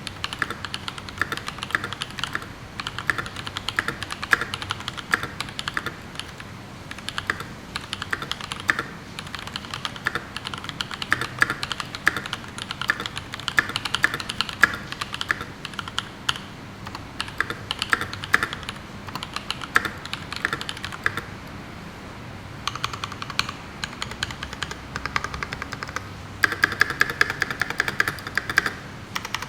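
Fast typing on a CA66 mechanical keyboard with Holy Panda tactile switches (YOK Panda housings with Halo stems) and GMK keycaps: a rapid, uneven run of keystrokes that pauses briefly about three quarters of the way through.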